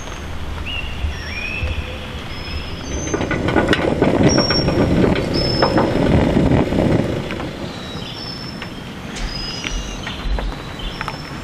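Forest birds calling with short whistled notes, some gliding in pitch. In the middle a louder rushing noise with crackles swells up and then fades away.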